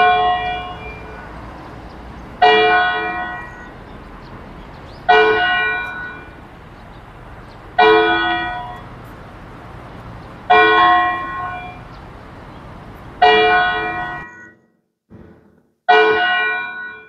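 A large bell tolling slowly, seven strokes about 2.7 seconds apart, each ringing out and dying away.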